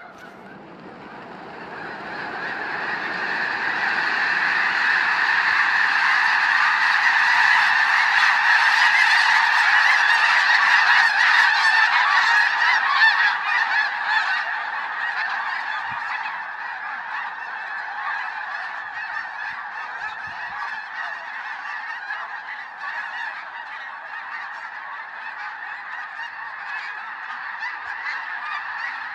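A huge flock of snow geese honking in a dense chorus that swells over the first few seconds as the whole flock takes off from the water, with a rush of wingbeats under the calls. After about 14 seconds it eases to a steadier, somewhat quieter chorus as the flock flies off.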